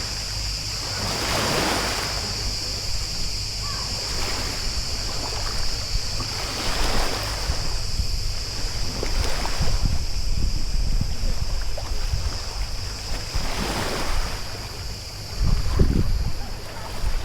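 Paddle strokes in the water from a stand-up paddleboard, a swishing splash about every two and a half seconds, with wind rumbling on the microphone. A steady high-pitched buzz runs underneath throughout.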